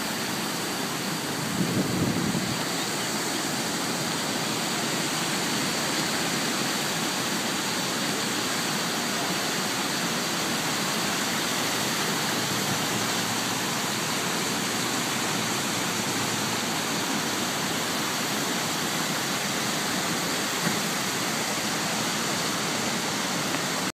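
River water rushing steadily over a low rock cascade, a constant wash of noise. A brief louder swell about two seconds in.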